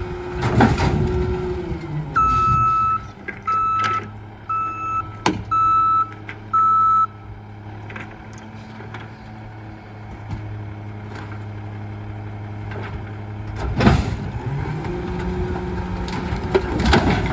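Rear-loader garbage truck: its engine drops from a raised speed to idle, then five evenly spaced alarm beeps sound about one a second. Near the end a sharp bang as junk hits the hopper, and the engine speeds up again to drive the hydraulic packer, with wood starting to clatter and crack.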